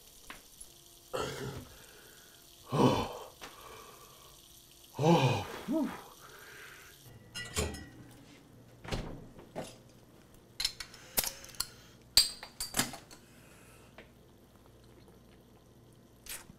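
A man groans three times in the first few seconds. Then comes a scattered run of sharp clinks and knocks as glass bottles and other things are handled at a kitchen fridge.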